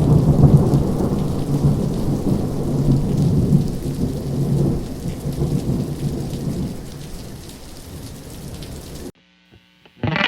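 Thunderstorm: steady rain with low rolling thunder, slowly fading and then cutting off suddenly about nine seconds in.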